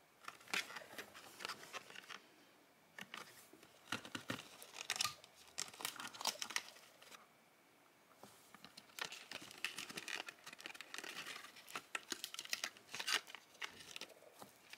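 Small cardboard toy box being handled and opened by hand: irregular crackles and rustles of the packaging as the figures are worked out of the insert, with a couple of short quiet pauses.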